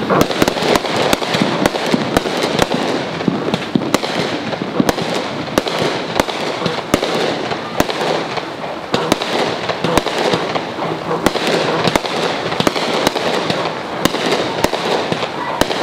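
Aerial fireworks going off: sharp cracks and pops in quick, irregular succession, several a second, over a continuous noisy wash.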